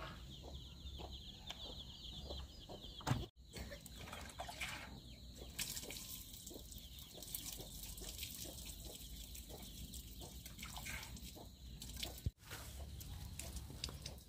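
Chickens clucking, with scattered light knocks and clicks. The sound cuts out for an instant about three seconds in and again near the end.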